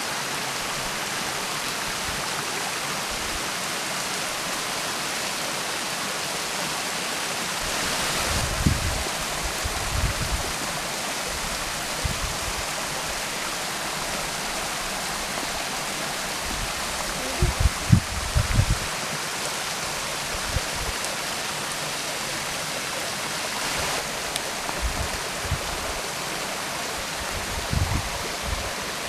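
Small forest waterfall and its stream: a steady rush of water falling over rock and running into a rocky pool. A few short low thumps come through in the middle and near the end, the loudest group about two-thirds of the way in.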